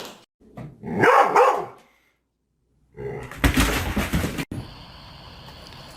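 A dog barking.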